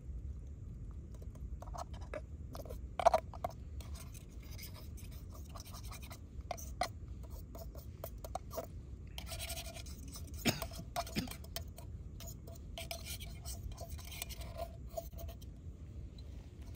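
A utensil scraping scrambled eggs out of a small camping pan, a run of irregular scratches and light knocks of metal on metal, the sharpest knock about three seconds in. A steady low rumble of wind on the microphone runs underneath.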